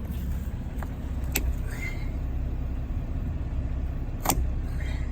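Pliers clicking against a punctured tire while working a stuck piece of steel out of the tread: two sharp clicks, the second louder, over a steady low rumble.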